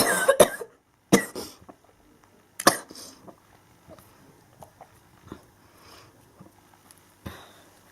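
A woman having a coughing fit: a cluster of coughs at the start, another cough about a second in and one more near three seconds, then only faint small sounds.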